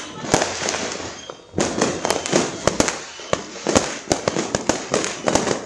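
Fireworks going off: many sharp bangs and crackles in quick succession, growing denser from about a second and a half in.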